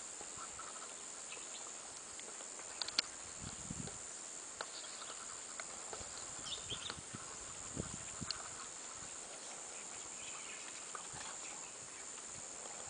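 Forest ambience: a steady high-pitched insect drone with scattered short chirps and clicks, and a few soft knocks.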